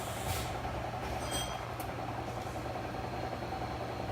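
Steady machinery hum, with a faint metallic clink about a second in.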